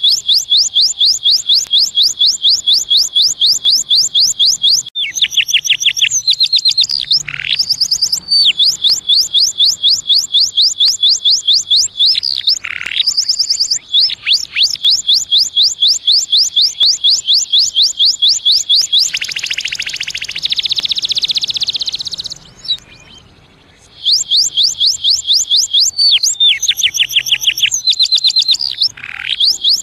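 Domestic canary singing: long, fast trills of rapid repeated high notes, broken now and then by quick falling swoops, with a buzzier roll about two-thirds of the way in and a brief pause just after it.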